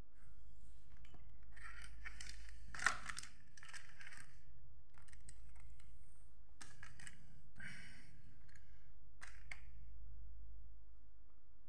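Aluminium foil crinkling and rustling in irregular bursts as pizza slices lying on it are pulled apart by hand. The loudest crackle comes about three seconds in, and the bursts thin out near the end.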